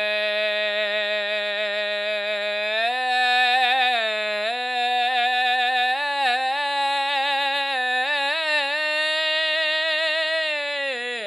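Solo unaccompanied voice singing improvised lines in full chest voice. It holds one long steady note, then about three seconds in steps up a little and moves through wavering, ornamented turns and slides. It ends with a downward slide.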